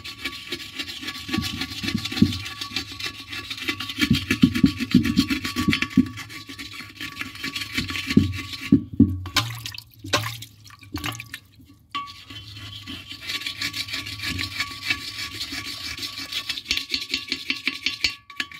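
Pumice stone scrubbing the inside of a porcelain toilet bowl in rapid back-and-forth gritty strokes, with a couple of brief pauses about halfway through, to remove stains and residue from the porcelain.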